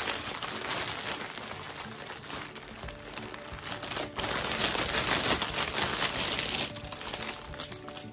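Thin clear plastic bag crinkling and rustling as hands pull and bunch it off a wrapped doll, in uneven bursts, loudest from about four to six and a half seconds in.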